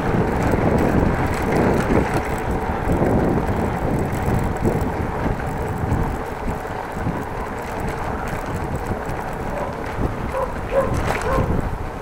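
Wind buffeting the microphone of an action camera on a moving bicycle, a steady low rumble and rush. A few short, higher-pitched sounds come in near the end.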